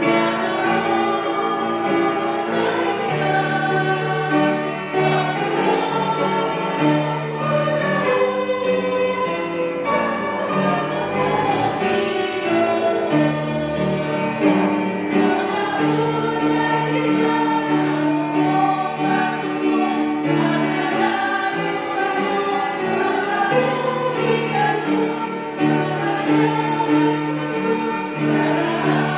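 Hiligaynon Christian worship song, a woman singing at a microphone over instrumental accompaniment with long held notes.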